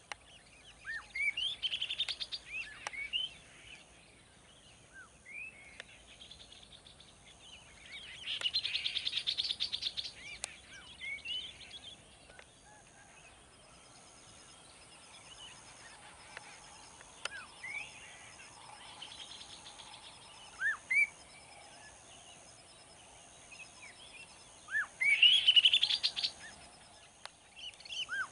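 Songbirds singing in bouts of short rising and falling whistled notes, among them a sooty-headed bulbul. The loudest bouts come about a second in, about nine seconds in, and near the end.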